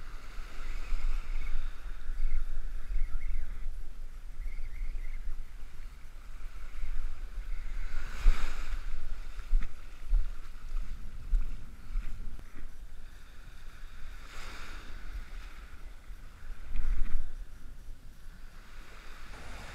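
Wind buffeting the microphone with a steady low rumble, over the wash of small ocean waves breaking and running up the beach, the surf swelling louder a few times.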